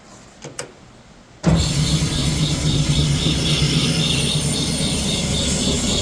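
Doall 2013V vertical bandsaw, with its 2 hp three-phase Baldor motor, switched on in high gear. A couple of clicks come first, then about a second and a half in the motor and blade start abruptly and run on steadily with a low hum, at about 1450 feet per minute.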